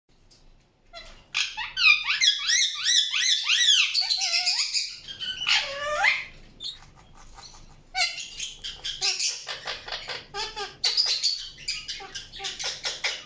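Indian ringneck parrot chirping: a quick run of rising-and-falling chirps starting about a second in, a longer swooping call near the middle, then fast, rapid chattering after a short lull.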